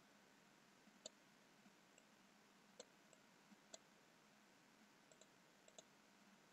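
Faint computer mouse clicks, single and in quick pairs, scattered through the seconds over near-silent room tone.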